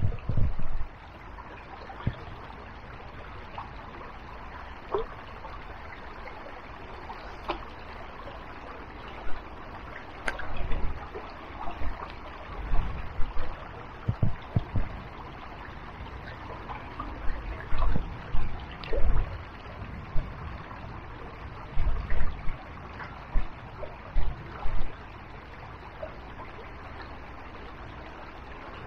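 Small river's water trickling steadily, with repeated short low thumps and rustles close to the microphone.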